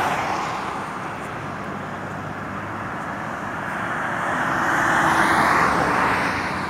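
Highway traffic passing: a lull of steady road noise, then a vehicle's tyre and engine rush that swells to a peak about five seconds in and fades again.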